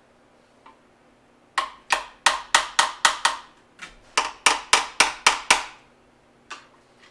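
Quick hammer strikes on metal, in two runs of six or seven sharp ringing blows about four a second, then a single lighter tap. The hammer is at work on the cylinder head during its teardown.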